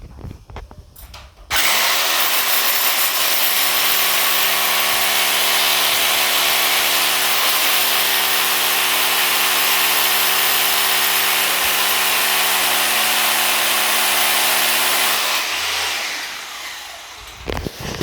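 Hammer drill drilling into a concrete wall: the motor starts suddenly about a second and a half in, runs steadily at full speed with a steady hum under a loud grinding hiss, then winds down and stops near the end.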